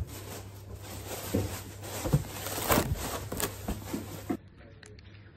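Rustling and short knocks as a sneaker and its cardboard shoe box are handled, with a louder crinkly rustle near the middle. The sound drops abruptly to a faint, quieter background about four seconds in.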